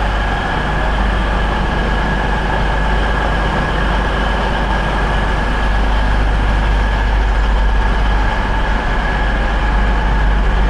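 Diesel passenger train standing with its engines idling: a steady low rumble with a constant whine.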